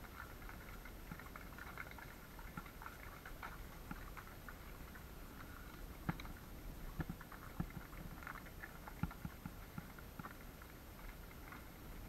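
Horses walking: a steady patter of light hoof knocks, with a few heavier thuds about six, seven and nine seconds in.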